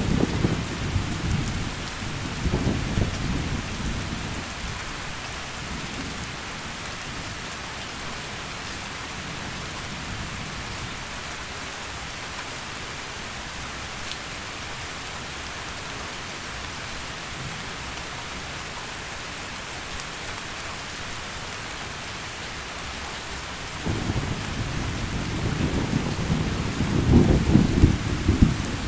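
Heavy rain falling steadily as an even hiss. Low rolling thunder rumbles at the start and dies away over the first few seconds, then builds again about four-fifths of the way in and is loudest near the end.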